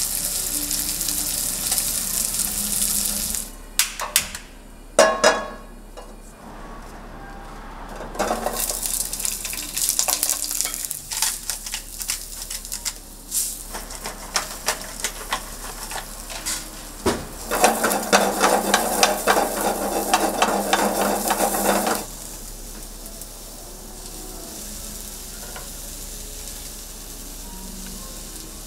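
Beef steak sizzling as it sears, with sharp clicks and knocks of cooking utensils. The sizzle stops briefly for a few knocks, comes back louder, then drops off suddenly about three quarters of the way through to a quieter steady hiss.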